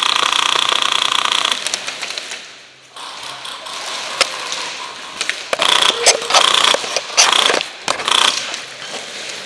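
Airsoft rifle firing full-auto: one long rattling burst that stops about one and a half seconds in, a lull with scattered clicks, then several short bursts from about six to eight seconds in.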